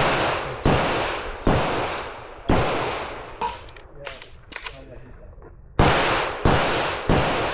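Pistol shots fired in a timed match stage: about seven loud shots in two strings, spaced under a second apart, each with a short echoing tail. In the middle is a gap of about three seconds with only fainter pops.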